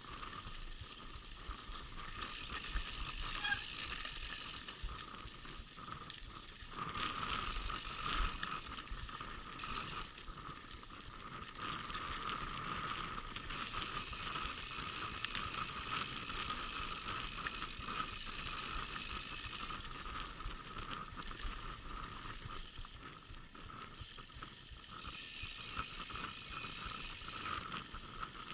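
Mountain bike rolling over a sandy, rutted dirt track: continuous tyre noise on the loose surface, with the bike's chain and parts rattling over the bumps.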